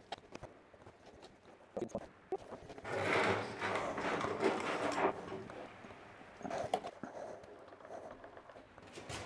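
Clinks, knocks and scraping of a measuring cup against a paint tin and plastic tub as two-pack epoxy paint is measured out for mixing, with a longer scraping stretch about three to five seconds in.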